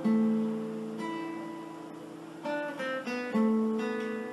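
Background music on acoustic guitar: plucked notes and chords that ring and fade, with a quick run of notes about two and a half seconds in.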